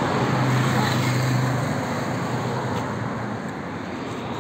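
Road traffic: a steady rush of passing vehicles, with one vehicle's low engine hum that fades away about two seconds in.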